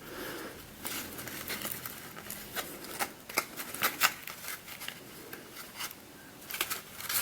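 Small cardboard puzzle box being handled and turned over in the hands: irregular light scrapes, taps and rustles of card and fingers against it.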